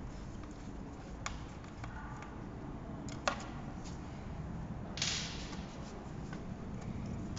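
A screwdriver working the small screws out of an electric scooter's plastic rear corner guard: a few light clicks and ticks, one sharper click a little past three seconds, and a short scrape about five seconds in.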